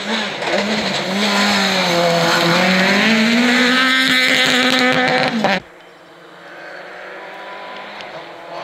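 Peugeot 208 rally car's engine running hard at high revs as it passes close on a gravel track, its pitch dipping and then climbing. About five and a half seconds in the loud engine cuts off suddenly, leaving a much fainter rally car engine.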